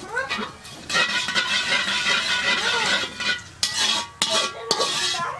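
Long metal spatula scraping and stirring spices in a little oil in a steel kadai, with metal ringing and several sharp clinks near the end.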